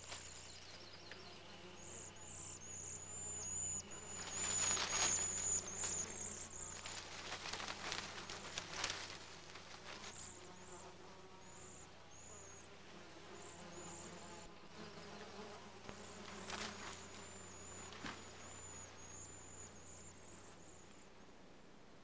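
Mule deer buck rubbing its antlers against brush to scrape off the velvet: brushy scraping and rustling of branches, loudest around four to six seconds in. Under it, high chirping of insects comes in repeated runs.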